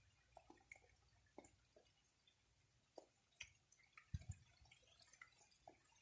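Faint, irregular drips and ticks of falling raindrops, with a low thud about four seconds in.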